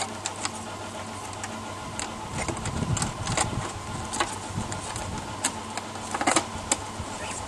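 Irregular clicks, knocks and rattles of wires and an aluminium end plate being handled and pushed into place on an aluminium battery box, with heavier handling about two to three seconds in, over a steady low hum.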